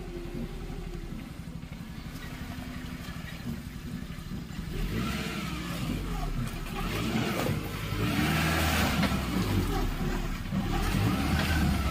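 Maruti Gypsy 4x4's engine running under load as it crawls over rocks and through shallow water, its tyres grinding on the stones. It gets louder about halfway through as the vehicle comes up close.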